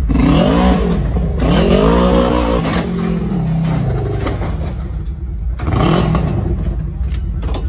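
Side-by-side UTV engine revving up and falling back three times over a steady low rumble as the machine rolls over, with sharp clattering knocks near the end.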